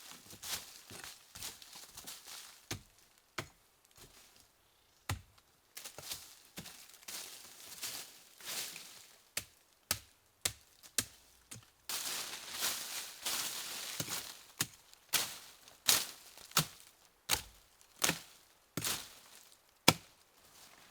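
Repeated sharp chopping strikes of a blade into wood, at an uneven pace and coming faster in the second half, with the loudest strike near the end. Between the strikes there are stretches of rustling and scraping.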